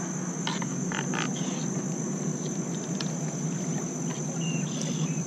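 Steady high-pitched insect chorus over a low steady hum, with a few brief splashes about half a second and a second in as a wooden pole probes the shallow muddy water.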